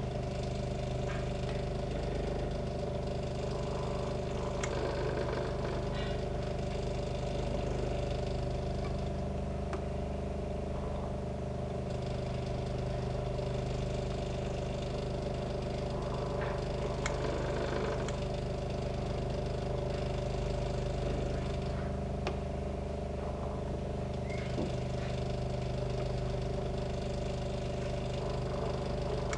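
Elna sewing machine running: a steady motor hum with faint scattered ticks from the mechanism.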